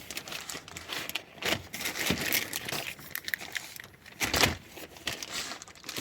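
Crinkling and rustling of plastic packaging handled by hand, with scattered clicks and knocks, the loudest about four seconds in.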